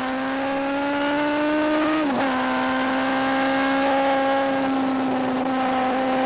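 Superbike racing motorcycle engine at high revs under hard acceleration. Its pitch climbs slowly, drops sharply at an upshift about two seconds in, then holds nearly steady.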